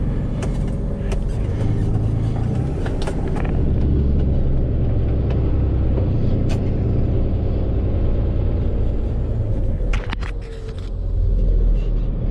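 Tow truck's engine and road noise heard from inside the cab while driving: a steady low rumble, with scattered sharp clicks and a brief dip in the rumble about ten seconds in.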